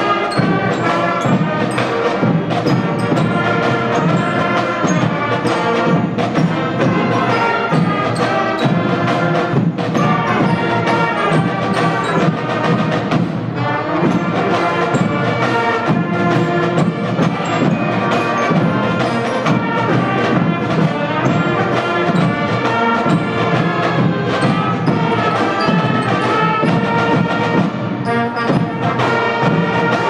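Middle school marching band playing a piece, brass over snare and bass drums.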